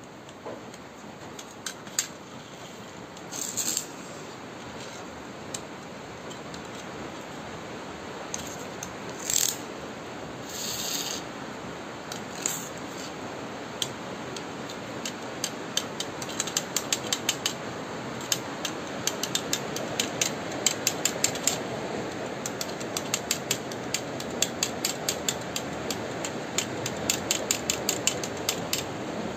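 Small plastic toy car's geared motor clicking and whirring as a hand pushes it back and forth over a hard surface. A few separate knocks come in the first half, then a fast, even run of clicks through the second half.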